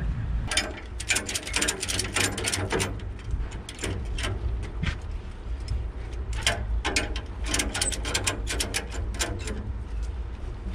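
Ratchet tie-down strap being tightened by hand: quick runs of clicks from the ratchet's pawl, in two spells, the second starting a little past halfway, over a steady low hum.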